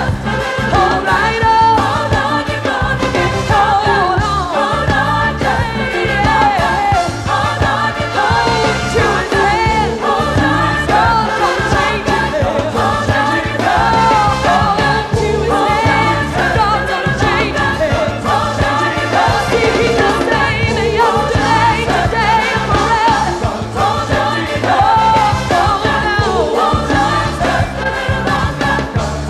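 Gospel song with a singing voice and choir over a full band with bass and drums, at a steady beat.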